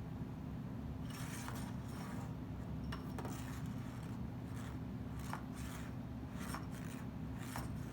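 A cockatoo scraping and nibbling at a toy, making irregular short scratchy rasps and clicks that start about a second in. A steady low hum runs underneath.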